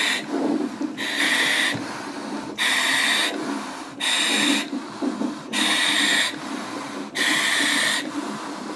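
A woman in labour breathing deeply through a handheld gas-and-air (nitrous oxide) mouthpiece: each inhalation draws a loud hissing rush through the valve, about six in a row roughly every second and a half, with quieter breathing out between them.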